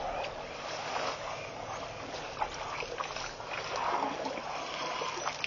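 African elephants drinking at a waterhole: water splashing and trickling as trunks dip into the pond and lift out, with scattered short clicks over a steady outdoor hiss.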